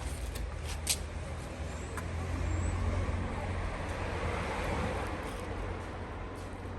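Road traffic: a steady low rumble, with a passing vehicle swelling and fading in the middle.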